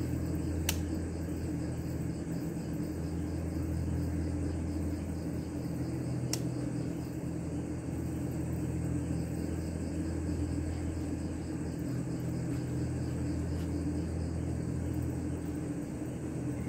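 A steady low machine hum, with crickets chirping faintly over it. A sharp click comes just under a second in and another about six seconds in.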